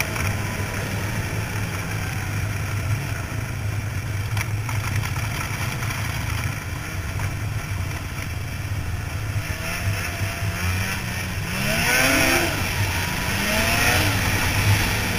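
2000 Ski-Doo Formula 500 Deluxe snowmobile's two-stroke engine running under way at a steady drone. Near the end it revs up and eases off twice in quick rising-and-falling sweeps.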